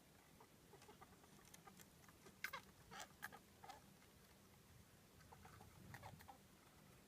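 A pet mouse with a cold or respiratory infection making faint, short sneezes and chirping noises: a cluster of them about two and a half seconds in and another around six seconds. The chirping and sneezing are the sign of the respiratory illness at its worst.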